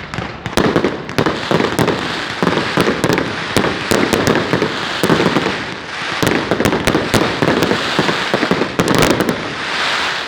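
Firecrackers going off in a dense, rapid string of loud pops and bangs, with a continuous crackle between them.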